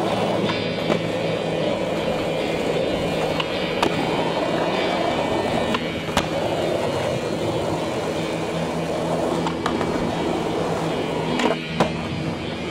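Skateboard wheels rolling on street asphalt, with several sharp clacks of the board popping and landing, about a second, four, six and twelve seconds in. Music with sustained tones plays underneath.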